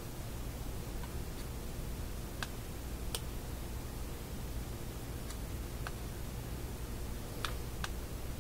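Scattered small clicks and ticks as fingers handle the little metal parts of a Philco shadow meter (tuning meter), about eight in all at uneven intervals, over a steady low hum and hiss.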